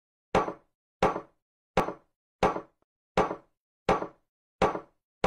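A steady beat of sharp knocks, about one every 0.7 seconds and eight in all, each dying away quickly into dead silence.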